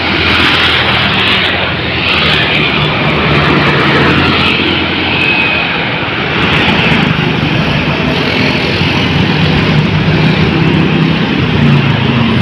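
Heavy highway traffic passing close by: a steady wash of engine and tyre noise, with a deep engine hum growing stronger about halfway through.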